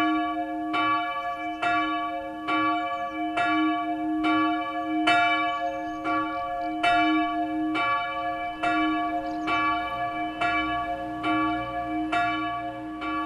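Church bell tolling steadily, about one strike a second, each strike ringing on into the next with a sustained hum.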